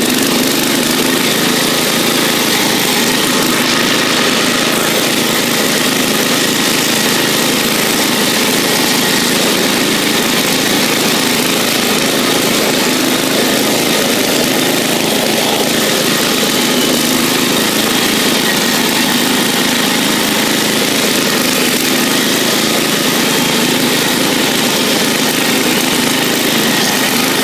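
Bolens riding lawn tractor's engine running at a steady speed while the tractor is driven along.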